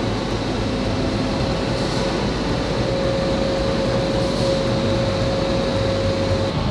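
Steady industrial machinery noise from a forging plant: a constant rumble with a steady mid-pitched whine that stops near the end.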